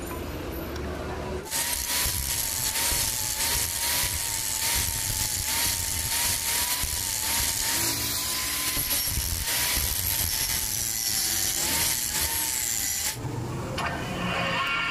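Electric angle grinder grinding a steel part clamped in a vise. It starts about a second and a half in, runs with a motor whine that wavers as the load changes, and cuts off suddenly about 13 seconds in.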